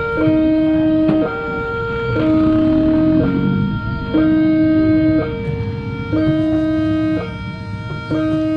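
Railway level-crossing warning alarm sounding an electronic two-tone signal, a lower and a higher note alternating about once a second, while the crossing's boom barrier lowers to close the road.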